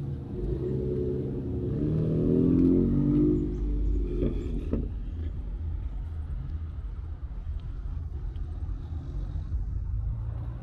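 Car engine running, its revs rising and growing louder for about three seconds, then settling back to a steady low idle.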